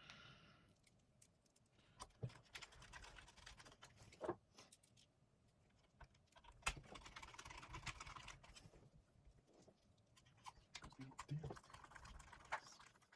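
Faint, scattered clicks and light rustling of small plastic parts being handled, with a busier stretch of handling in the middle.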